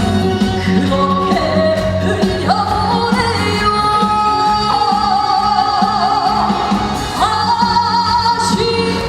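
Trot music with singing: a melody of long held notes with vibrato over a steady band beat.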